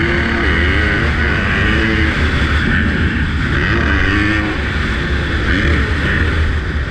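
Dirt bike engine running under load, its note rising and falling again and again as the throttle is opened and closed.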